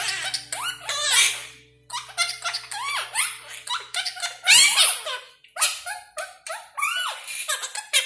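Quaker parrot chattering in a rapid, squawky mimicked voice, repeating the phrase "good, good, good boy". Faint background music runs under it and stops about halfway through.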